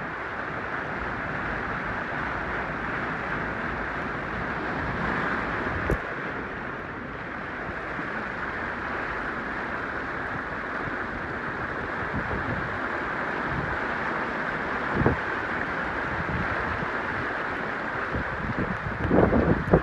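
Steady hiss of tropical-storm rain and wind, with gusts buffeting the microphone in a fluctuating low rumble. A couple of short knocks, and louder buffeting just before the end.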